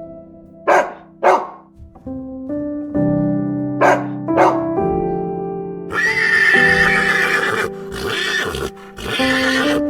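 A horse whinnying over background music, a long quavering call that starts about six seconds in and runs on, broken by short gaps. Four short, sharp sounds come earlier, in two pairs.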